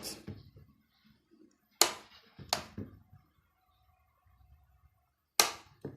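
Three sharp clicks and knocks from a plastic electric kettle being handled, the last one the loudest.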